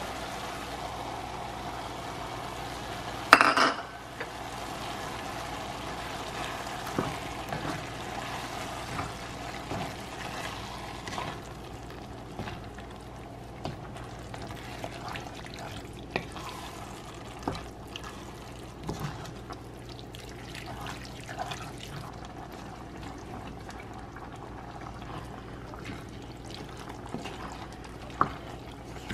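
Chili ingredients going into an enamelled cast-iron Dutch oven and being stirred with a wooden spoon: thick tomato sauce and beans poured in and worked through the mince and vegetables, with one sharp knock about three seconds in and many small knocks and scrapes of the spoon against the pot.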